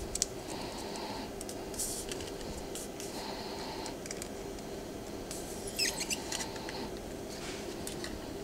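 Light clicks and taps of fingers handling a stylus, in small clusters about a tenth of a second in, near two seconds and near six seconds, over a steady low room hum.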